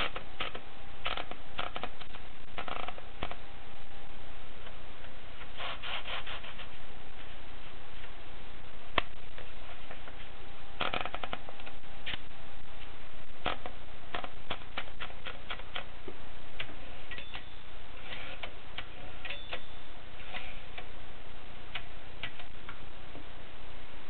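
Groma Gromina portable typewriter's mechanism clicking as the platen knob is turned and the carriage is handled: single sharp clicks and quick runs of ratcheting clicks, irregularly spaced.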